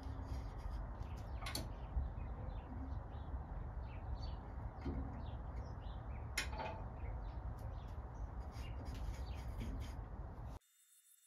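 Wood lathe running with a steady low hum while a hand-held turning tool cuts a spinning 2x4 offcut down into a dowel, giving short chirpy squeaks from the cut and two sharp clicks. The sound cuts off suddenly near the end.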